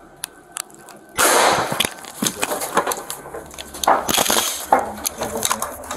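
A loud sudden blast about a second in, with a hissing tail, as a police less-lethal round is fired up into the ceiling space, followed by scattered knocks and clatter.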